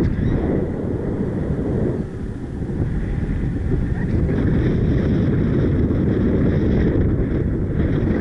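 Strong wind buffeting the microphone of a paraglider's on-board camera: a loud, steady low rumble with a slight lull about two seconds in.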